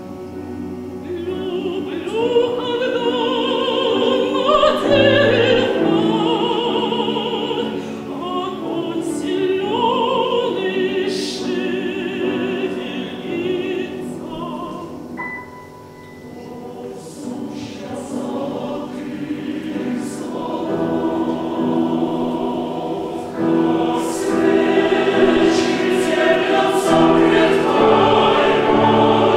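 Mezzo-soprano soloist singing with vibrato together with a mixed choir. The music falls quieter about halfway through, then swells louder and fuller over the last few seconds.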